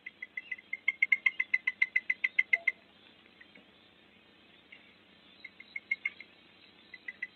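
Oriental Honey Buzzard chick begging: a rapid run of high, evenly spaced chirps, about seven a second, lasting about two and a half seconds. Two shorter runs follow later.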